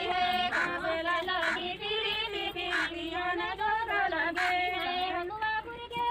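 A group of women singing together, several voices holding long wavering notes.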